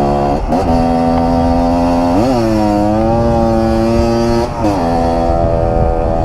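125 cc two-stroke dirt bike engine running under way, its note holding steady, rising about two seconds in and dropping back down near the five-second mark.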